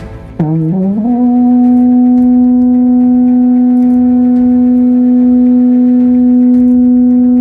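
A bocina, the very long processional horn of Calzada de Calatrava resting on a wheeled cart, blown in one long, loud note. It starts about half a second in, slides up from a low pitch, then holds a steady rough tone. It is the traditional call to silence in the procession.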